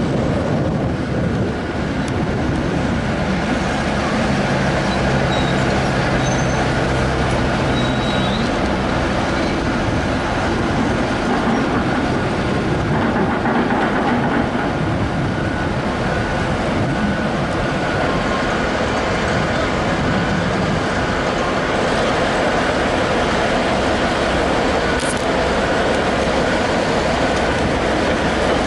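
Steady, loud running of heavy diesel equipment: an excavator and crawler crane working at the rail line, with a low hum in the first few seconds.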